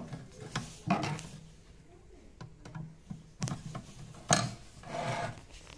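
Scattered clicks, knocks and rustles of hands handling an opened blower room heater's sheet-metal housing and wiring, with one sharp click about four seconds in the loudest.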